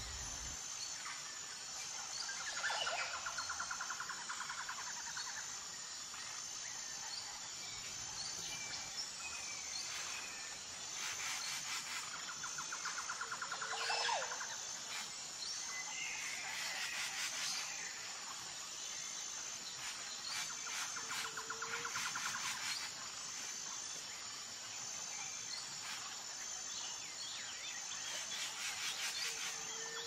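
Insects and birds: a steady high-pitched insect trill, with bursts of rapid pulsed insect buzzing that come and go every several seconds, and a few short bird chirps.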